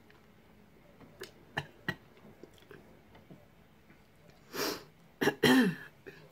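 A few small clicks of mussel shells being handled, then a loud throat-clearing near the end, two rough bursts with a falling voiced sound in the second.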